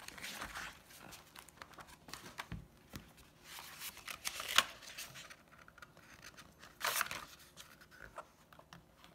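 Pages of a hardcover graphic novel being flipped and turned by hand: short swishes of paper rustling, the main ones near the start, about four and a half seconds in, and about seven seconds in.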